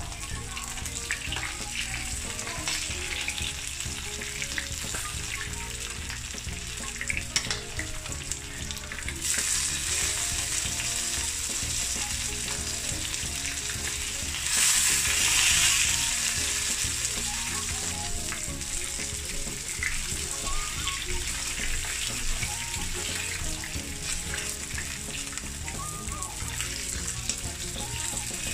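Rohu fish steaks sizzling as they fry in hot mustard oil in a nonstick pan, with small taps and scrapes of a spatula turning them. The sizzle grows stronger about a third of the way in and flares up loudest about halfway through, as a steak is lifted and turned.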